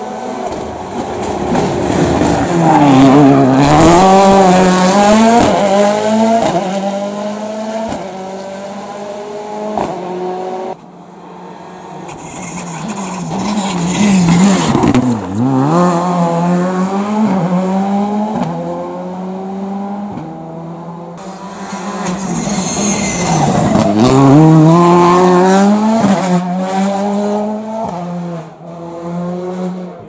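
Rally cars, among them a Ford Fiesta and a Škoda Fabia, accelerating hard out of a hairpin one after another: three loud passes, each with the engine revving up and down through gear changes before fading, with tyre squeal as the cars slide through the bend.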